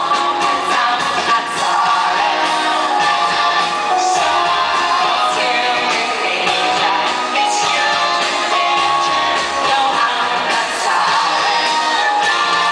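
Loud live pop concert music with singing, and crowd shouts over it.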